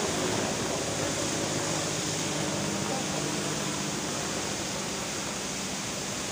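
Helicopter in flight at a distance: a steady rushing hum with faint low tones, growing slightly fainter.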